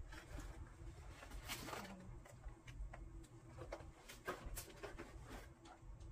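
Faint rustling and light clicks and knocks of clothes and small items being handled and moved about on a bed.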